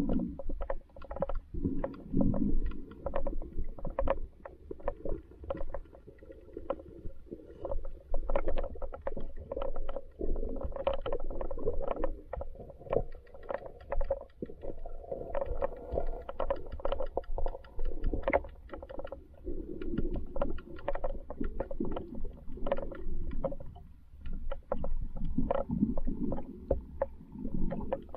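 River current picked up underwater through an action camera's waterproof housing: a steady, muffled low rumble of flowing water with many irregular clicks and ticks throughout.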